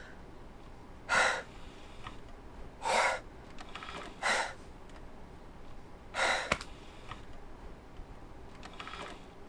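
A man breathing hard in four loud, sharp breaths spread over several seconds, with a small click just after the last one.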